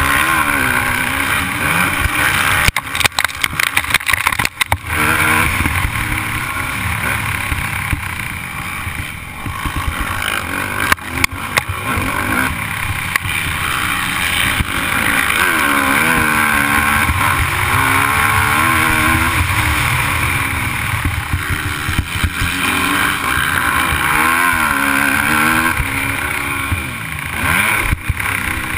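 Motocross bike's engine heard from on board, revving up and down as the rider works the throttle, its pitch climbing and falling over a heavy rush of wind and track noise. There are brief throttle chops about three to five seconds in and again around eleven seconds.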